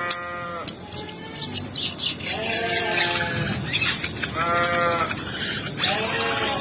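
Four drawn-out, nasal, bleat-like animal calls, each arching up and down over about half a second, with faint high chirps and rustling behind them.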